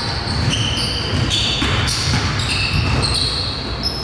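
Basketball game play in a gym: a basketball bouncing on the court, with short high squeaks from players' shoes cutting in and out.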